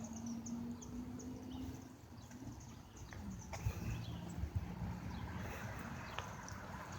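Faint outdoor ambience: a low, distant background rumble with scattered short bird chirps.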